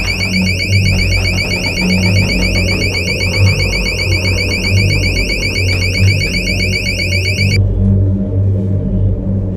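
An electronic alarm tone, a fast-repeating high ringing, sounds for about seven and a half seconds and then stops abruptly. Heavy bass music plays underneath throughout.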